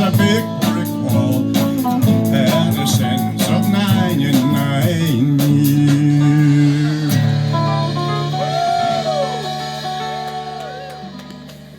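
Live country-blues band playing the instrumental ending of a song. Guitar and bass hold a chord, then a guitar plays bending notes as the music fades out near the end.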